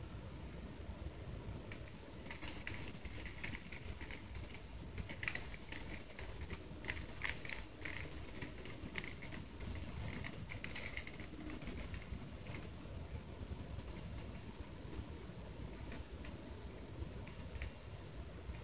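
Hanging strands of plastic beads, gold charms and purple shell discs being handled and swung, clicking and jingling together with a high ringing tinkle. It starts about two seconds in and is busiest for the next ten seconds, then thins to scattered clinks.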